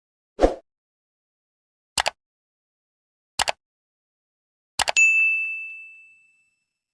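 A short low thump, then three quick double clicks about a second and a half apart, then a single bright ding that rings and fades over about a second, with dead silence between them.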